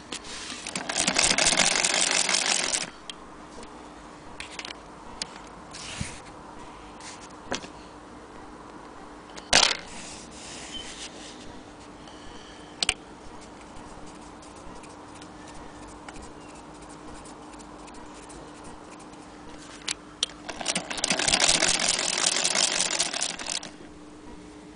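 Antique Jones hand-crank sewing machine stitching in two short runs, a rapid mechanical clatter of two to three seconds each, one near the start and one near the end. In between come scattered handling clicks, with one sharp click about ten seconds in, over a faint steady hum.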